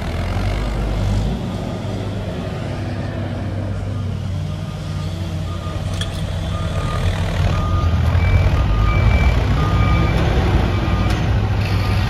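Diesel farm tractor engines running hard as a tractor drags a large log through mud, louder in the second half. From about halfway, a reversing beeper sounds a row of short, evenly spaced beeps.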